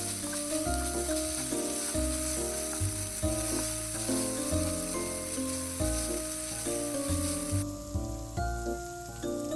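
Food sizzling in a frying pan, a steady hiss that cuts off abruptly about three-quarters of the way through, under background music with a melody and bass.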